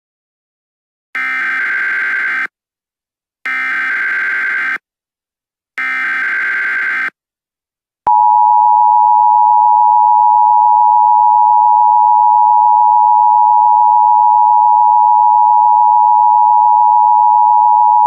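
Emergency Alert System signalling: three short bursts of SAME header data, each a rough digital warble, then about eight seconds in the steady two-tone EAS attention signal starts and holds for about ten seconds.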